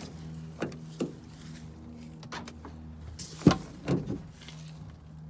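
Rear door of a 2005 Dodge Ram 2500 pickup being handled and opened: a few clicks and knocks from the handle and latch, with the loudest clunk about three and a half seconds in, over a steady low hum.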